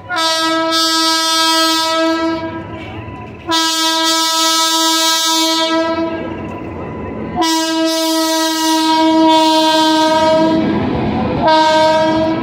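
Electric locomotive's horn sounding in four blasts as the train approaches: three long blasts of about three seconds each, then a short one near the end. The rumble of the oncoming train grows in the last couple of seconds.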